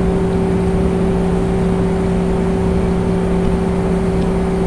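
Steady, loud machine hum: a constant low drone with a second tone an octave above it, over an even rushing noise that does not change.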